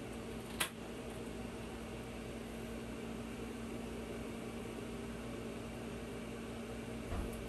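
Steady fan-like machine hum, with one sharp click about half a second in and a short low knock near the end as the cut acrylic sheet is handled.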